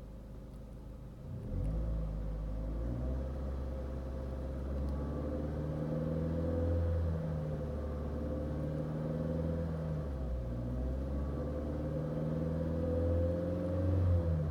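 Opel Corsa C 1.2 petrol engine running. Its revs rise about a second and a half in and then shift up and down, with a steady tone holding above the engine sound throughout. The owner hears an unexplained, annoying noise from it, loudest around 2500 rpm and at certain road speeds.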